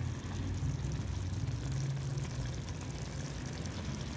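Spinach-and-mutton curry simmering in the pot with a faint bubbling sizzle, over a steady low hum.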